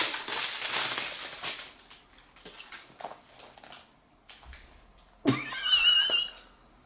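Gift packaging crinkling and rustling as it is pulled open, with a few softer rustles and clicks after it. About five seconds in comes a high-pitched, wavering excited squeal.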